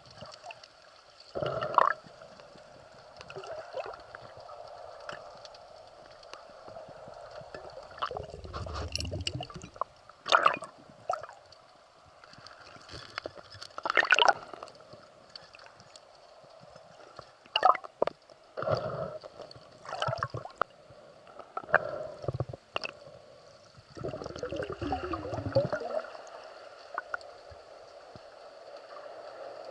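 Underwater sound of shallow sea water while spearfishing: gurgling and sloshing with sharp clicks and knocks scattered through, and a few longer rushes of bubbling water, over a steady faint hum.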